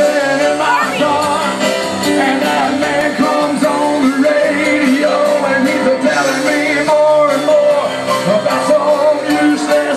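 Live band playing rock and roll loudly, with a man singing at the keyboard over drums.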